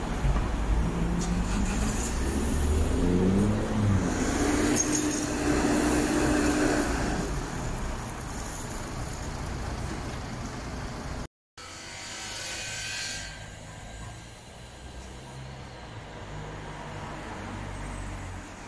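Heavy vehicle engine running at a construction site, a loud low rumble. It cuts out briefly about eleven seconds in, and a quieter engine rumble follows.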